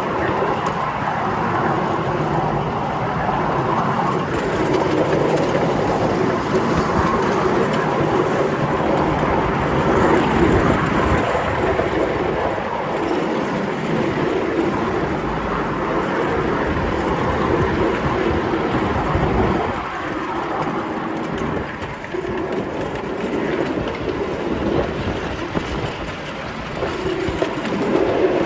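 5-inch gauge ride-on miniature train running along the track: a continuous rumble of wheels on rail that eases slightly about two-thirds of the way through.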